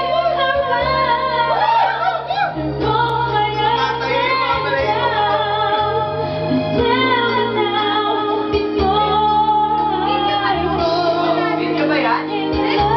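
A woman singing karaoke into a handheld microphone over a recorded backing track with held bass notes.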